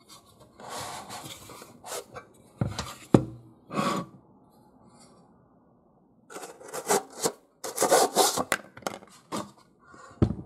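The stainless steel burn chamber and plastic power module of a BioLite CampStove are handled and taken apart. The sound is scraping and rubbing with several sharp knocks, the loudest about three seconds in. After a short lull there is another run of quick scrapes and clicks, and one more knock near the end.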